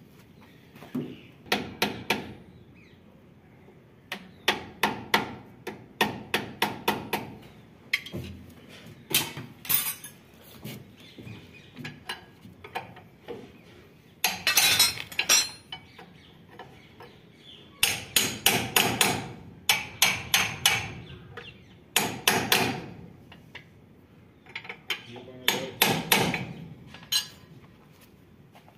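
Steel spanners knocking and clinking against the metal pulleys and bolts of a Swaraj 8100 combine harvester's belt drive, in irregular clusters of sharp metallic knocks, some in quick runs of several strokes.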